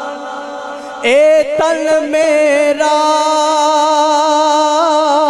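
A man singing a Punjabi devotional kalam solo into a microphone: a long drawn-out note, softer at first, then about a second in a louder note that swoops up and is held with wavering ornaments.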